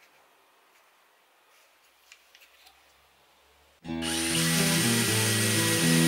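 A few faint handling clicks, then about four seconds in a DeWalt Xtreme 12V cordless drill/driver starts abruptly and runs steadily with a high whine, driving a screw into a clamped plywood frame corner. Music starts at the same moment.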